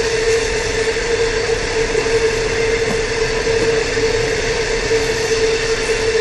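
Train running on rails: a steady rumbling noise with a continuous whining tone over it.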